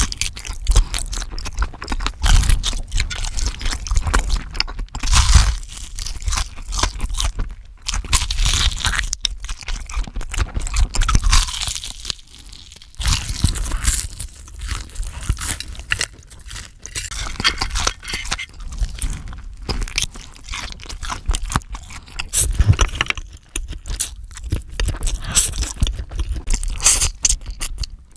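Close-miked eating: crisp crunching bites and wet chewing of crispy-coated fried chicken and a sausage, in irregular clusters with short pauses between bites. Near the end, instant noodles are slurped.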